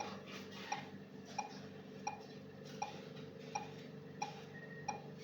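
Mechanical ventilator running on an artificial test lung: a steady machine hum with a sharp click repeating about every 0.7 s, and a brief high beep about four and a half seconds in.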